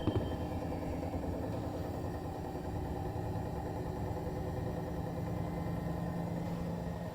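Bosch Serie 4 EcoSilence washing machine spinning with a steady drone and hum, with one short knock right at the start. The owner takes the noise for a fault in the drum/spindle bearing area, heard from about 400 to 1400 rpm while the brushless motor itself is quiet; Bosch judged it normal.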